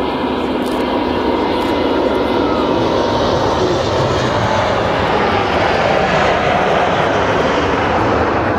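Jet engine noise of a passing Airbus A380 airliner: a loud, steady rush that builds slightly toward the end, with a faint whine.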